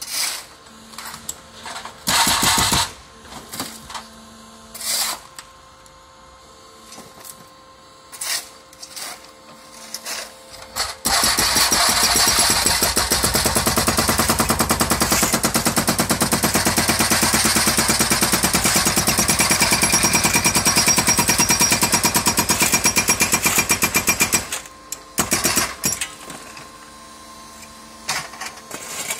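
Hydraulic breaker on a remote-controlled demolition robot hammering into a concrete roof slab: short bursts for the first ten seconds or so, then about thirteen seconds of continuous rapid hammering that stops a few seconds before the end. A steady machine hum runs underneath.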